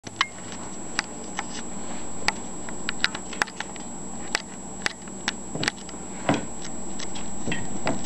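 Scattered sharp clicks and taps, a few a second, from a Congo African grey parrot tearing at banana and paper on a countertop.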